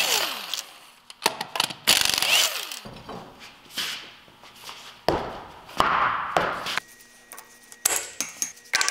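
Pneumatic impact wrench spinning lug nuts off a wheel in several short bursts, with metallic clinks between them.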